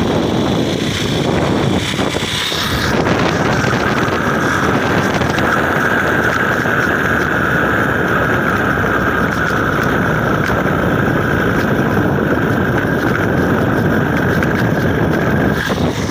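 Motorcycle riding over a stone-block paved road: continuous engine and road noise, with wind buffeting the microphone. A steady high hum comes in about three seconds in and stops just before the end.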